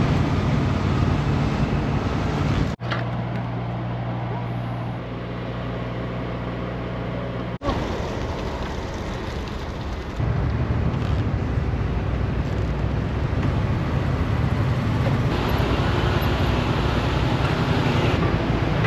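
Motorcycle engine running at low speed with road and wind noise, a steady hum that gets louder and rougher from about ten seconds in; twice it breaks off abruptly.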